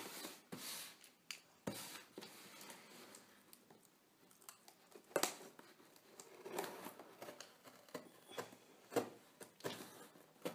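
Scissors cutting through the packing tape on a cardboard box: faint, scattered snips and scrapes, with a few sharper clicks about five seconds in and again near nine seconds.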